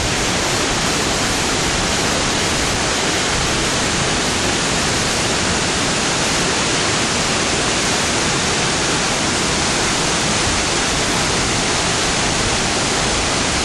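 Waterfall: steady, loud rush of falling water with no breaks.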